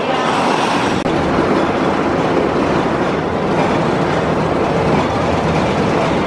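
Steel roller coaster's chain lift running as it hauls a train up the lift hill: a steady, dense mechanical rattle.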